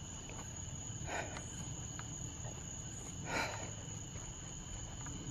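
Night insects trilling steadily in two high, unbroken tones, with two brief rustles about a second and three and a half seconds in.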